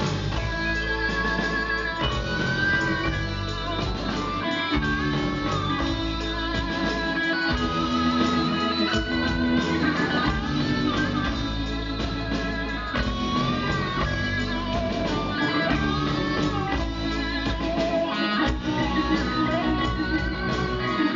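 Live rock band playing an instrumental break between verses: electric guitar and keyboards over bass and drums, with a wavering lead melody line.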